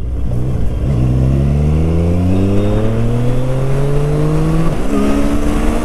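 Triumph Street Triple 765 RS's inline three-cylinder engine accelerating under steady throttle, its pitch climbing for about four seconds. Near the end the pitch drops sharply as the quickshifter snaps it up a gear with no clutch and no throttle cut.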